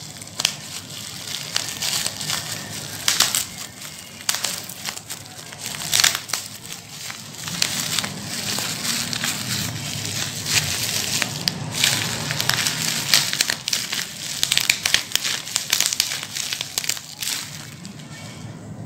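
Bubble wrap and plastic packaging crinkling and rustling as hands unwrap a box, with irregular sharp crackles throughout; it dies down near the end.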